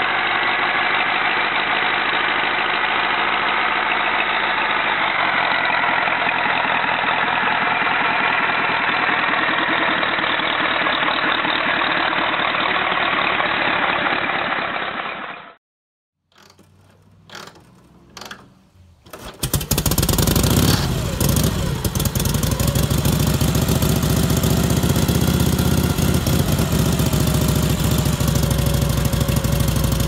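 Indian Four's air-cooled inline four-cylinder engine running steadily, sounding dull. About halfway through it cuts off. After a few short sputters, a Harley-Davidson Knucklehead's overhead-valve V-twin starts and keeps running.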